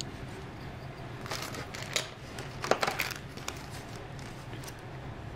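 A few light clicks and rustles of small plastic model-kit parts being handled and put down, over a low steady hum.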